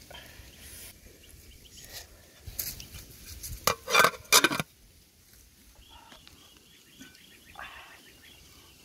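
Aluminium pot lid being set onto a metal cooking pot: a few sharp metallic clanks with a short ringing, about four seconds in.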